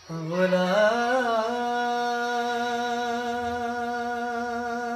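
A male singer's voice slides up through a wavering, ornamented run in the first second and a half, then holds one long, steady sung vowel. It is a wordless held note in Punjabi Sufi-song style.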